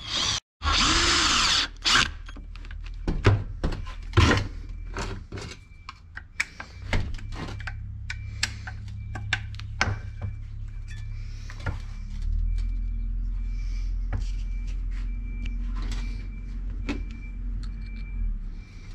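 Workshop tool work on a brushcutter's recoil starter: a short loud burst of a power tool about half a second in, then scattered clicks and knocks of tools and parts over a steady low hum.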